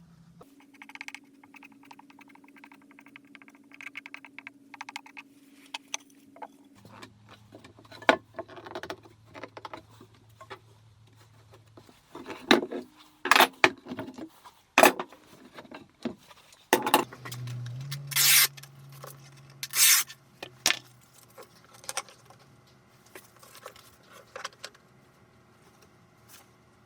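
Workshop handling sounds: a run of knocks, taps and scrapes of wood and tools being moved and set down, with several louder sharp knocks in the middle, over a faint steady hum.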